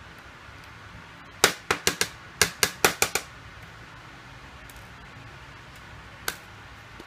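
A quick run of about nine sharp clicks over under two seconds, then a single click near the end: small hard objects knocking on a hard surface while a phone is being taken apart.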